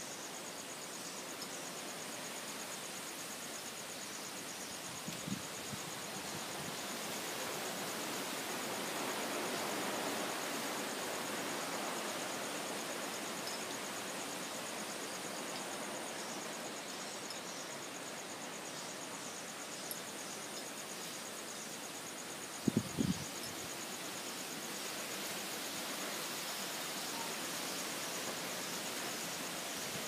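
Strong wind gusting through trees, a rushing hiss that swells and eases, over a steady high-pitched trill of insects. Two brief low thumps stand out, a faint one about five seconds in and a louder double one about three quarters of the way through.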